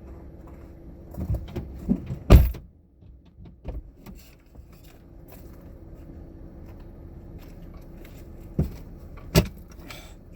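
A series of sharp knocks and thumps, the loudest about two seconds in and another about nine seconds in, over a steady low hum.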